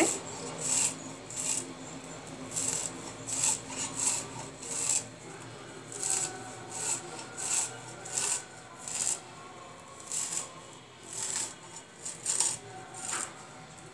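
Handfuls of grass pea (kolai) greens being chopped fine against a boti's fixed curved blade: short slicing strokes of leaf and stem on metal, about one to two a second, in irregular runs.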